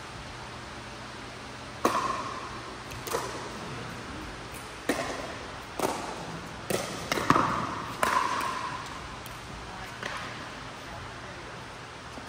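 Pickleball rally: sharp pops of paddles striking the hollow plastic ball, about nine hits between roughly two and ten seconds in, coming fastest in a quick exchange near the middle. Each pop rings briefly and echoes in the large indoor hall.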